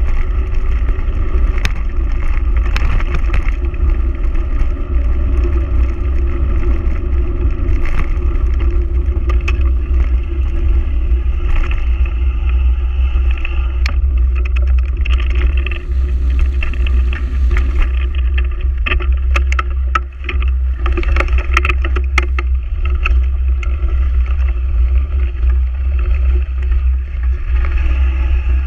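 Mountain bike riding fast over a gravel track. Heavy wind rumble buffets the microphone over tyre noise on the gravel, with frequent sharp rattles and knocks as the bike hits bumps.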